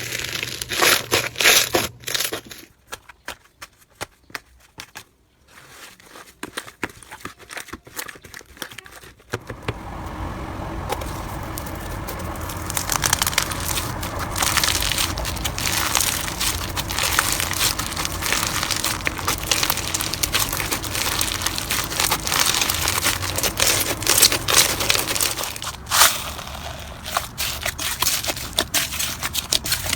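Slime being squeezed and worked by hands, with dense crackling and crunching pops. It goes much quieter for several seconds early on, then returns as a louder, denser crackle.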